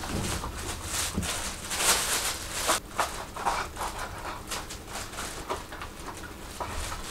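Rustling with light clicks and knocks from a plastic pet carrier as its lid is opened and the cat inside shifts about, louder about two seconds in.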